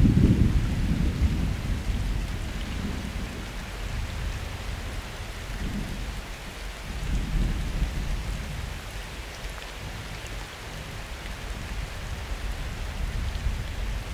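Steady summer rain with rolling thunder: a loud low rumble at the start that dies away over a couple of seconds, then a softer rumble about seven seconds in.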